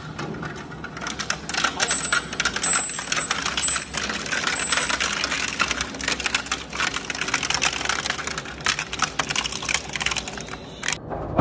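Twin-shaft shredder's toothed rotors crushing wire spools: a dense, irregular run of cracks, snaps and metallic clatter.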